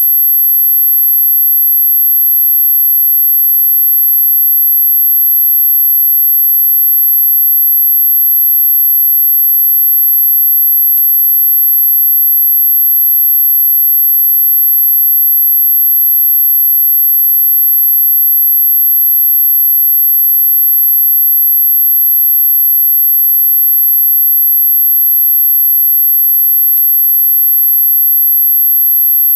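A single steady, very high-pitched electronic tone, held without a break or change in pitch. It is played as an anti-barking sound for dogs.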